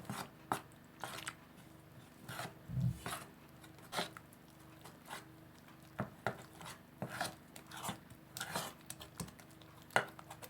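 A utensil stirring flour into yeasted milk in a bowl for pizza dough, with irregular clinks and scrapes against the bowl, about one or two a second.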